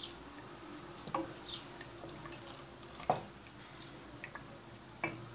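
A wooden spoon stirring thick, boiling tarhana soup in a steel pot: a few soft, wet plops and knocks, about one every two seconds, the loudest about three seconds in.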